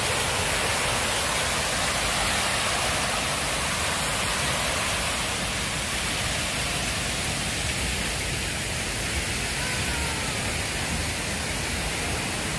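Fountain water cascading over a stepped stone rim into its basin: a steady rushing that eases slightly in the second half.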